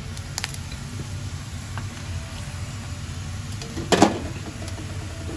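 Metal mesh skimmer handling fried chicken pieces over a pan of oil: a few light clicks, then about four seconds in a sharp metallic clatter as the chicken goes into a wire mesh strainer. A steady low hum runs underneath.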